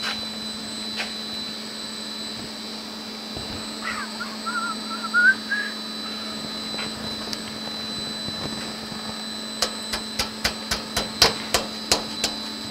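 A snorkel pipe being pushed and pressed by hand into a fender hole lined with rubber pinch-weld trim: a short wavering squeak about four seconds in, then a quick run of about ten sharp knocks and taps near the end. A steady hum runs underneath.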